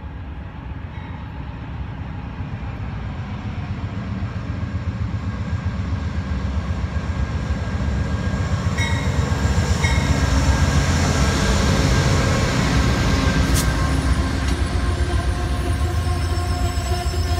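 Amtrak passenger train hauled by a GE Genesis diesel locomotive pulling into a station. The locomotive's rumble and the rolling wheels grow steadily louder, peaking about ten seconds in as it passes, then the passenger cars roll by slowing. Thin high squealing from the wheels and brakes comes in over the last few seconds.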